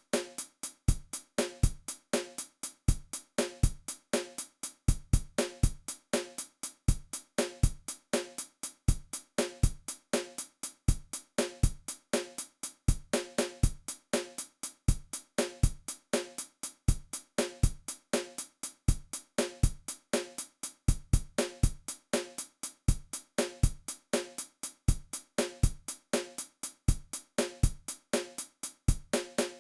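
A dry drum beat: kick, snare and hi-hat hits in a steady repeating pattern, with short silences between hits.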